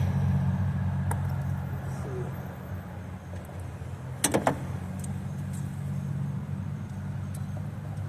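Steel sockets and hand tools clinking as they are handled: a single click about a second in and a short cluster of metallic clinks around four seconds in, over a steady low hum.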